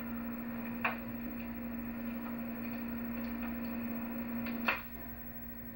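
Light knocks and clicks from wooden crib rails being handled and fitted, over a steady electrical hum. The hum cuts off with a sharper click about three quarters of the way through.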